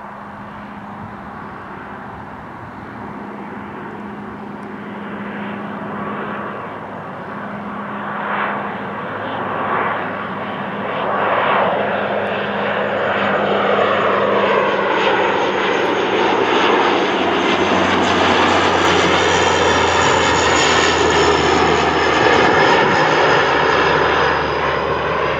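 Bombardier Dash 8 Q400 turboprop airliner on landing approach, its propeller and engine drone growing steadily louder as it passes close by. The sound takes on a swirling, rising-and-falling quality as it nears, and a high whine comes in over the second half.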